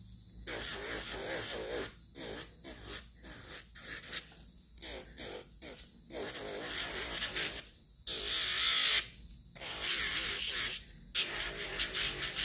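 Electric nail file (e-file) with a sanding band grinding acrylic-gel nail enhancement around the cuticle and sidewalls. The grinding comes in many short passes, starting and stopping as the band touches and leaves the nail, with one longer pass about eight seconds in.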